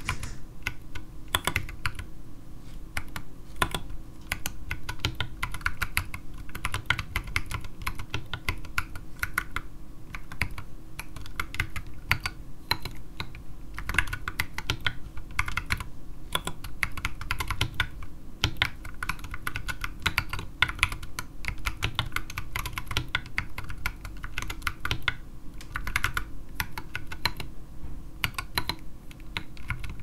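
Continuous typing on a 60% mechanical keyboard with stock, unlubed Durock T1 67 g tactile switches and SA-profile keycaps in a resin Tofu case. The keyboard sits directly on an oak desk with no mousepad, and the keystrokes come in a rapid, unbroken run with only brief thinner spells.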